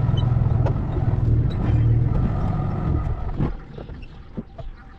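A motor runs with a loud, steady low hum, then stops about three seconds in. A few short knocks follow.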